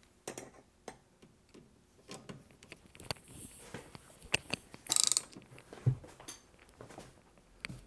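Ratchet driving a T30 Torx bit against a firmly stuck screw, trying to break it loose: scattered clicks and knocks, with a quick run of ratchet clicking about five seconds in and a low knock just after.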